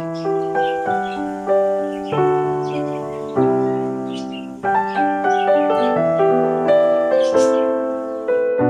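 Background piano music: a gentle melody of struck notes and chords, each one fading after it is played.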